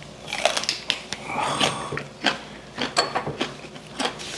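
Close-up chewing of a gwamegi roll wrapped in a green stalk: irregular crisp clicks and crackles.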